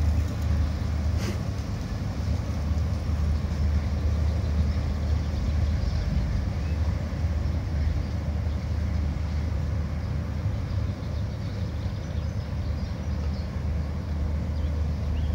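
River cruise ship's diesel engines running, heard from the bank as a steady low drone.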